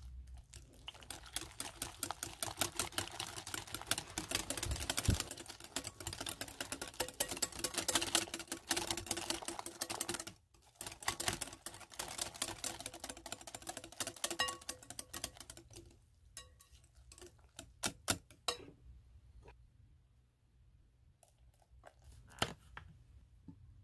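Wire balloon whisk beating an egg into creamed butter and sugar in a glass bowl: fast, continuous clicking of the wires against the glass, stopping briefly about ten seconds in, then thinning to scattered taps for the last several seconds.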